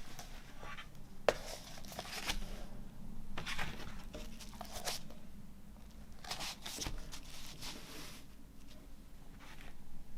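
Record packaging being handled: paper and plastic sleeves rustling and crinkling in several short spells, with one sharp tap about a second in.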